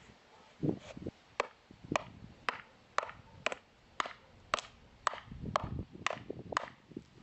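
A steady run of sharp hand-tool strikes on hard material, about two a second, after one duller thud near the start.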